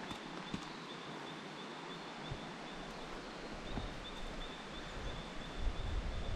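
Steady rushing of a flowing river, with a faint, high pulsing chirp over it and wind buffeting the microphone near the end.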